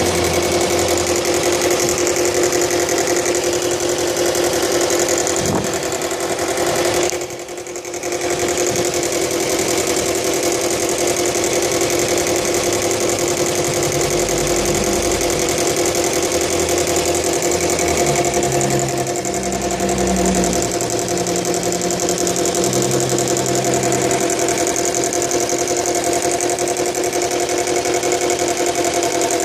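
Subaru Legacy BL5's flat-four engine running steadily with a rattle, the noise the owner is trying to show. The sound dips briefly about seven seconds in.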